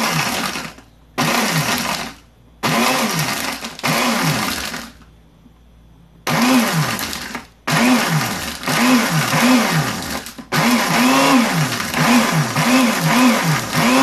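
Kitchen blender grinding eggshells, switched on and off in short pulses and then run in longer stretches from about six seconds in. The motor pitch rises and sags again and again as the blades hit the shells. The eggshells are being ground to sharpen the dull blades.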